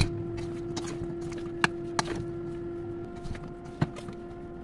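Wooden utensil tossing sliced bitter gourd in a stainless steel bowl, knocking sharply against the bowl four times, over a steady hum from an unseen appliance.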